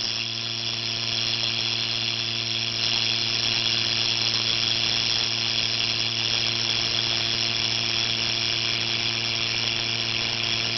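Silicone-rubber model vocal folds vibrating in airflow, giving a steady buzzing tone over the hiss of rushing air. It grows slightly louder and brighter about three seconds in.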